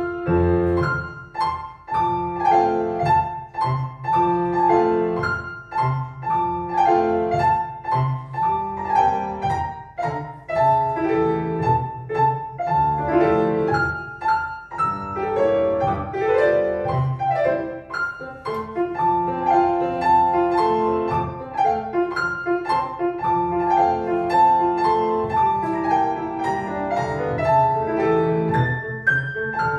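Classical piano music for a ballet barre exercise, playing continuously with a steady, regular beat.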